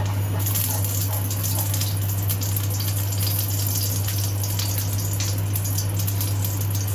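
Cooking oil heating in a stainless steel wok, crackling and spitting from about half a second in, over a steady low hum.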